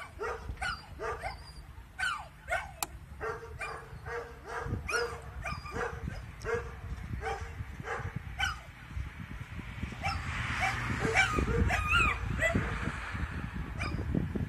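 Siberian husky puppy barking and yipping outdoors in short, repeated calls, two or three a second. About ten seconds in, a louder rushing noise builds beneath wavering higher calls.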